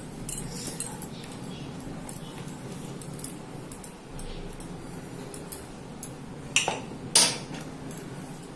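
Fingers scraping wet ground paste out of a steel mixer-grinder jar onto a steel plate: soft scraping with small metal clinks, and two sharp metal-on-metal clinks a little after six seconds in, about half a second apart.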